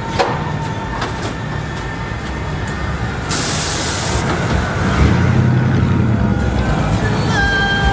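Slow cruising street traffic with engines running, cut by a sharp burst of air hiss about three and a half seconds in that lasts about a second.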